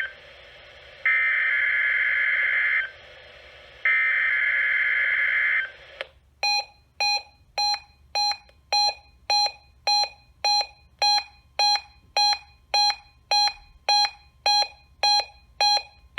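NOAA Weather Radio required weekly test, heard through a weather radio receiver. Three short bursts of the SAME digital data header, each a harsh buzzy data tone under two seconds long, are followed about six seconds in by an even series of electronic alert beeps, about two a second.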